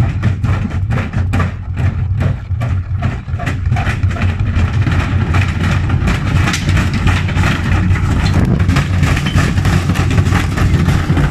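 Gorenje washing machine spinning hard with an unbalanced load: a loud steady motor hum under rapid, continuous knocking and rattling as the drum and cabinet shake.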